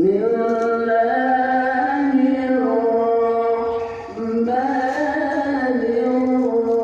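Arabic religious chanting from a mosque loudspeaker: a single voice holds long, wavering notes, with a short breath about four seconds in.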